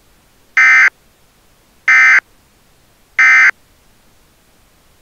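Emergency Alert System end-of-message data bursts: three short, loud, buzzy digital chirps about a second apart. They are the SAME-code signal that marks the end of a broadcast severe weather alert.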